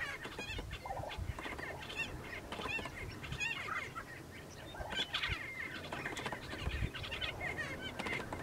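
Prairie chickens calling during their mating display: many short, overlapping calls repeated throughout, busiest about five seconds in.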